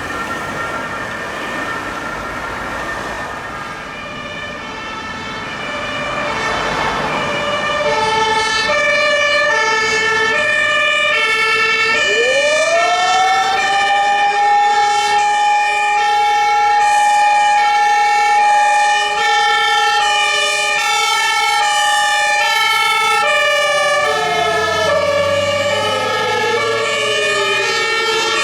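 Two-tone Martinshorn sirens of German fire engines and ambulances sounding together, stepping back and forth between their two pitches. About twelve seconds in, a siren winds up, holds one steady tone for about eleven seconds and then slowly falls near the end: the fire brigade's siren alarm.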